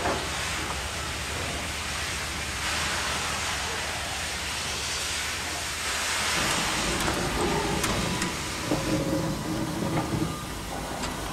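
Southern Pacific 4449 'Daylight' oil-fired 4-8-4 steam locomotive moving slowly: escaping steam hisses in long swells, and from about six seconds in the rumble and clank of its rolling running gear comes in.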